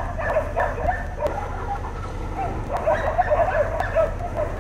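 Animal calls: quick runs of short yelps, one in the first second and another from about the middle to near the end, over a low steady rumble.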